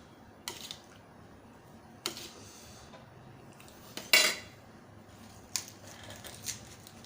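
Cutlery clinking and scraping against a dish while eating, a handful of separate clinks a second or two apart, the loudest a little past halfway.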